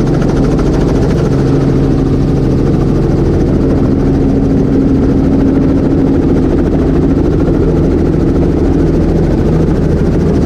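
Robinson R44 helicopter's six-cylinder Lycoming piston engine and rotor running steadily, heard from inside the cockpit, with the helicopter low over the ground. A loud, even drone with a few steady low tones.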